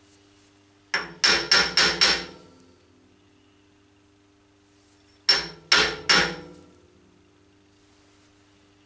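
Soft-faced hammer tapping an aluminium workpiece down onto parallels in a milling-machine vise to seat it: five quick taps about a second in, then three more about five seconds in.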